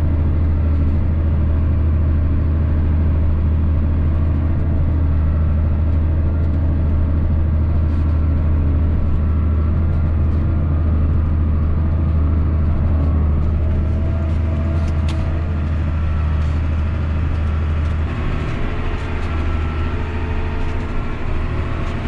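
John Deere 8310 tractor's diesel engine running steadily, a strong low hum, as the tractor pulls a box scraper through snow.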